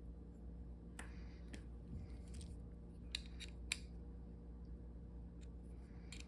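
Light metal clicks from handling a small folding ring knife, a few scattered clicks with the two sharpest close together a little over three seconds in.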